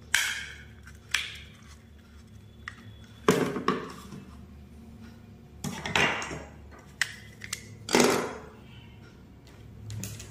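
Hard plastic batten lamp holders handled on a tabletop: a string of sharp clicks and knocks with a few short scrapes, as a holder is set down and another is pulled apart into its base and cover.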